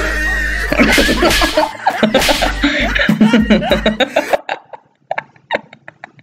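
Excited voices and laughter mixed with sharp noisy bursts, loud for about four seconds, then dropping to quiet with a few short breathy snickers.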